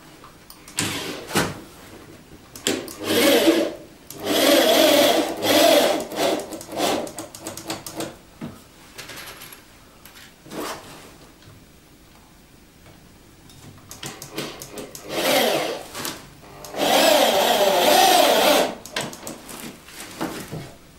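Corded electric drill running in several bursts of one to three seconds, with a longer pause in the middle, as it works into wooden floorboards.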